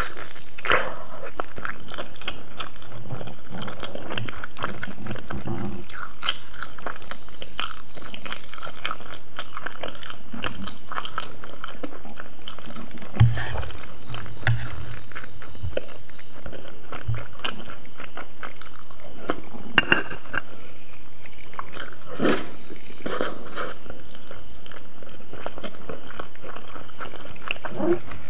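Close-up eating sounds: biting into a fried egg and chewing jajangmyeon noodles, with many small wet clicks and smacks. A few low thumps come about halfway through.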